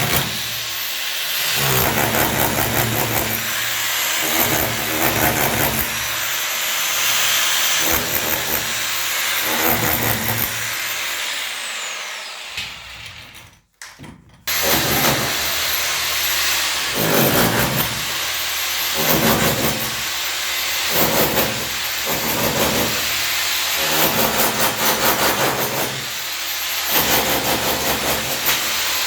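A power tool worked in repeated bursts, its sound swelling and easing. About twelve seconds in it winds down and briefly cuts out, then starts up again.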